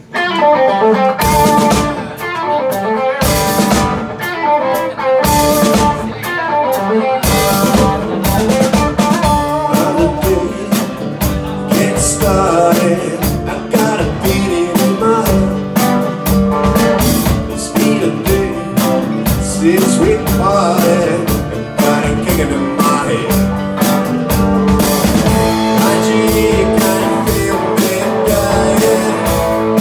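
A live band plays a song on electric guitar, acoustic guitar and drum kit. The guitar starts at once and the drums come in about a second later.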